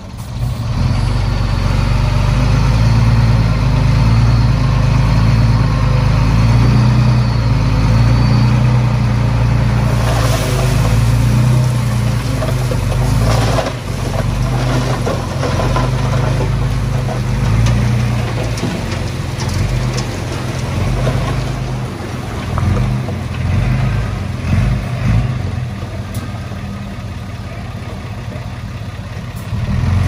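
Heavy diesel earthmoving machinery running under load, its engine speed rising and falling. About ten seconds in there is a burst of scraping, clattering noise, with a few sharp knocks later on.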